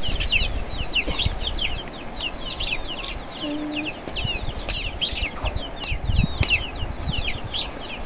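Chicken chicks peeping nonstop, many quick high downward chirps a second, with a short low call from an adult hen about three and a half seconds in. A few dull knocks from a hand hoe working the soil sit under the peeping.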